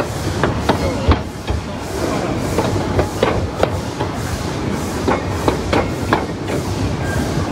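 Narrow-gauge steam train running along the track: a steady rumble with irregular sharp metallic knocks and clanks, two or three a second, from the wheels and running gear on the rails.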